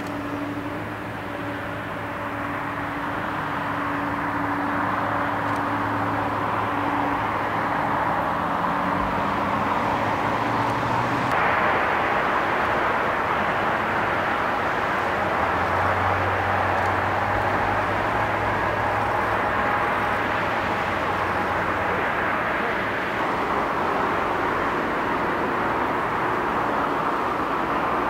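Jet airliner engines running on the ground, first a Boeing 747, then Airbus A320s: a steady rushing roar with a few low engine tones held beneath it. The sound changes abruptly about eleven seconds in and again a few seconds before the end as one aircraft gives way to the next.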